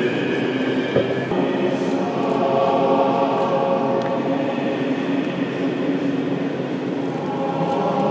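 Orthodox church choir singing liturgical chant in long, held chords of several voices.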